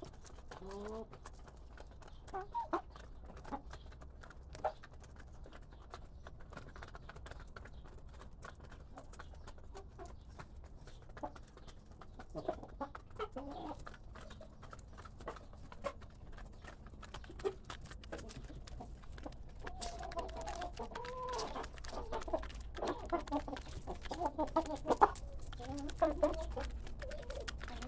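A flock of hens clucking softly while pecking at grain, their beaks tapping the ground in many quick little clicks. The clucking gets busier in the last several seconds.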